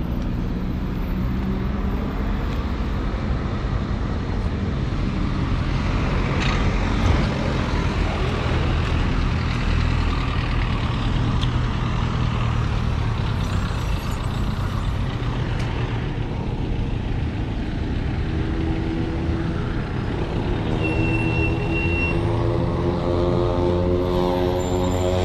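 Street traffic: a steady rumble of vehicle engines and tyres. Late on, one nearby engine's pitch climbs as it draws near or speeds up.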